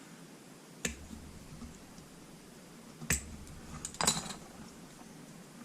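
Sharp clicks of hard plastic model-kit parts being handled and pressed together in a dry fit: one click about a second in, another about three seconds in, and a short cluster of clicks about four seconds in.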